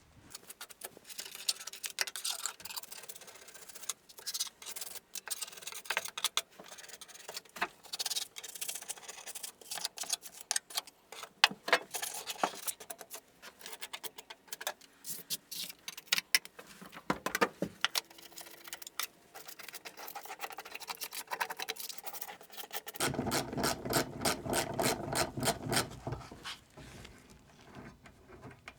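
Insulated wall panel being worked into its mounting channel: scattered knocks, clicks and scraping, with one sharp knock near the middle and a denser rattling stretch of a few seconds near the end.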